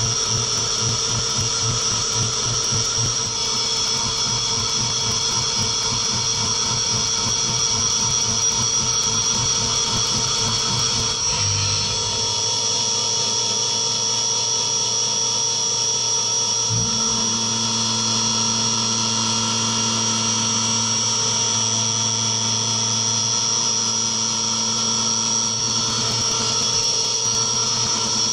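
CNC milling machine's spindle driving a 6 mm carbide end mill at 7000 rpm, cutting aluminium under flood coolant on a contour pass: a steady high-pitched whine over several constant lower tones. The lower tones change about twelve seconds in and again a few seconds later.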